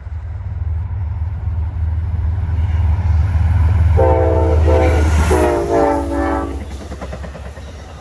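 Amtrak GE P32AC-DM diesel locomotive approaching and passing with a loud low rumble. Its horn sounds a chord twice, a short blast about four seconds in and then a longer one. The passenger cars follow with wheel clatter near the end.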